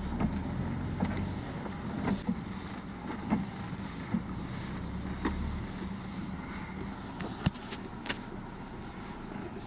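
Truck engine running, heard from inside the cab, with scattered light clicks and knocks. The deep low drone drops away a little past halfway, leaving a lighter hum.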